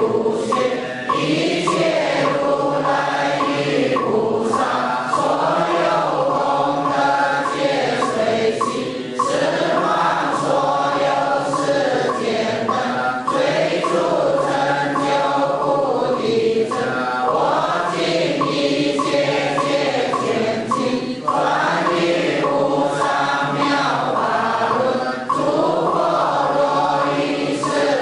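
A congregation of many voices chanting a Buddhist liturgy together in unison, in long held phrases broken by brief dips every few seconds.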